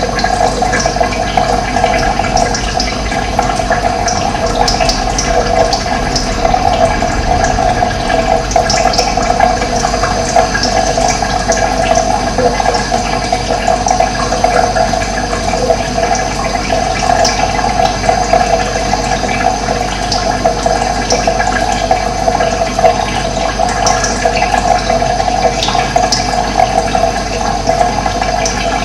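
Steady rushing of flowing water, with faint, short, high bird chirps scattered through it.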